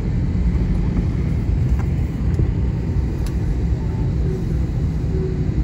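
Steady low rumble of an Airbus A320-family jet's cabin, heard from inside during taxi: engine and airframe noise with no distinct events.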